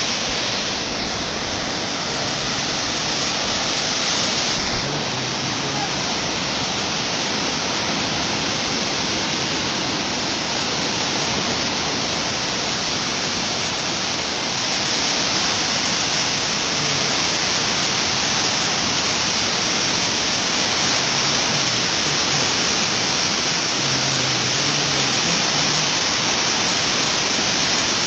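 Floodwater rushing down a wadi in flash flood, a steady rush of water that grows a little louder about halfway through.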